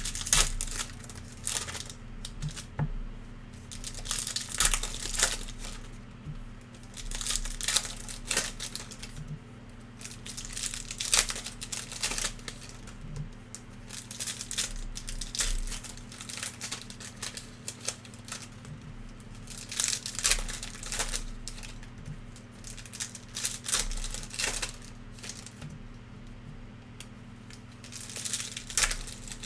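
Trading-card pack wrappers being torn open and crinkled, with cards handled, in repeated bursts of crackling every second or two over a steady low electrical hum.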